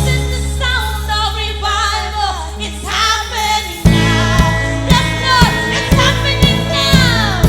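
Worship song: singing over sustained low bass and keys. About four seconds in, a steady drum beat comes in at roughly two beats a second.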